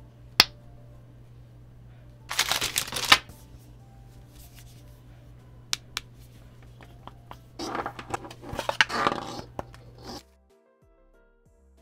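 Hands handling plastic and rubber pool-light parts: a clear suction cup with its magnet, a black power adapter with a coiled cord, and the light housing. A sharp click about half a second in, a burst of rustling and rubbing about two seconds in, two small clicks around six seconds, and a longer stretch of handling from about seven and a half seconds. Soft background music takes over near the end.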